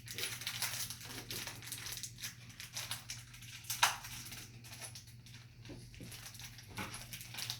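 Rustling, scraping and small clicks from handling door-lock hardware and screws, with one sharper click about four seconds in, over a low steady hum.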